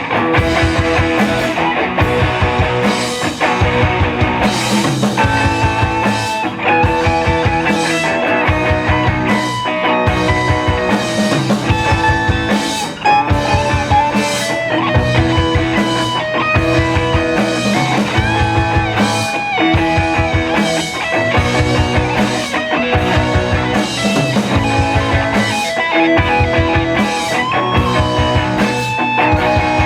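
Rock band playing live: guitar lines over a steady drum kit beat, with no singing heard.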